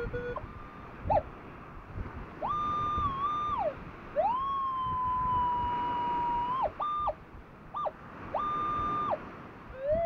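Minelab Equinox 800 metal detector sounding a target signal: about seven electronic tones, each gliding up in pitch, holding and sliding back down, the longest lasting about two and a half seconds near the middle, as it passes over buried metal in the sand.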